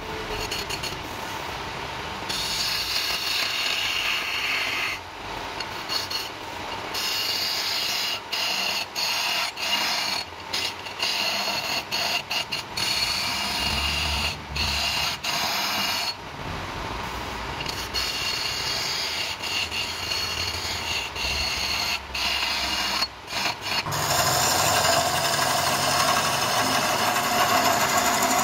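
Electric wood lathe running while a hand-held turning tool cuts into a spinning wooden blank, a continuous scraping cut broken by many short gaps. It gets louder near the end.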